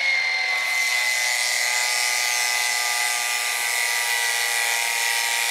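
Small 12-volt electric oil transfer pump running steadily, a high motor whine that settles slightly lower in pitch in the first second. It is pumping gear oil into a rear differential through the filler hole.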